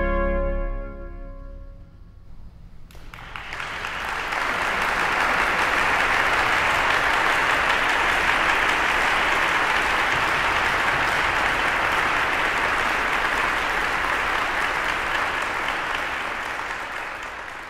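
The final chord of two baroque trumpets and organ dies away in the basilica's reverberation over the first two seconds. About three seconds in, the audience breaks into steady applause, which fades near the end.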